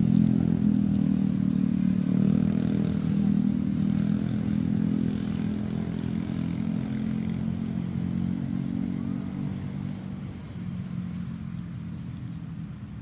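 A motor vehicle engine running steadily with a low hum, slowly growing quieter.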